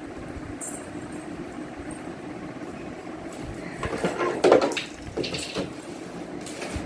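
Hard plastic knocking and rattling as the push handle of a plastic rocking-horse ride-on toy is handled and fitted, a cluster of knocks about four to five seconds in, over a steady low hum.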